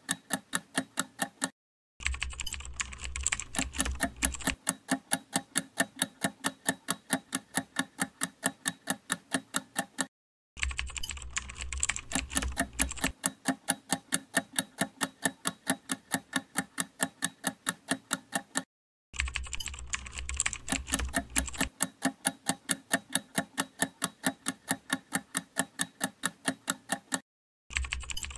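Countdown-timer ticking sound effect: rapid, even clock-like ticks. The ticks drop out briefly three times, and after each restart a deep low rumble lies under them for a couple of seconds.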